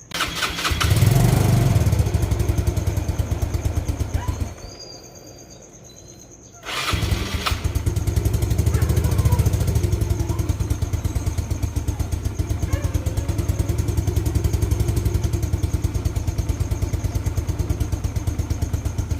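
Yamaha Mio scooter's single-cylinder four-stroke engine started and revved briefly, then cutting out after about four seconds; it is restarted a couple of seconds later and settles into a steady, low idle. This is the test run after its valve clearances were adjusted to cure hard starting and a high idle.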